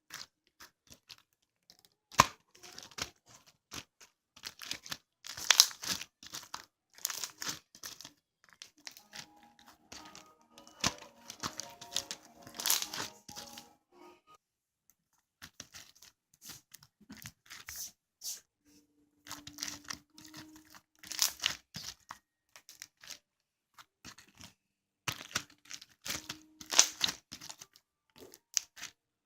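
Irregular crinkling and tearing sounds, like something being handled and torn, coming in clusters with short pauses. Faint steady tones sound under the crinkling in the middle.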